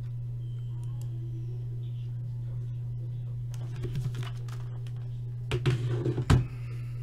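Scattered clicks, then a quick clatter of clicks and knocks near the end, the loudest a little over six seconds in, from things handled on a desk, over a steady low hum.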